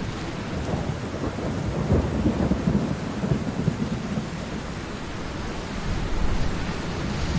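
Thunderstorm: thunder rumbling over steady rain, with louder rolls about two seconds in and again near the end.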